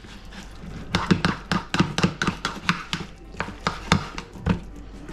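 Knife chopping on a cutting board: a quick, slightly uneven run of sharp chops, about four a second, starting about a second in.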